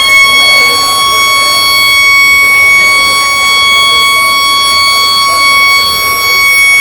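School's electric siren sounding at full pitch, holding one loud, steady high tone.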